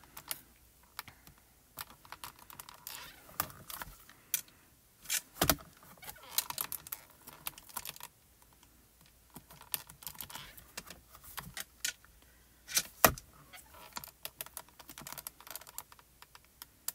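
Clear photopolymer stamps being handled and set on the clear plastic lid of a stamp positioner: irregular small clicks, taps and crinkles. There is a sharper tap about five and a half seconds in and the loudest about thirteen seconds in.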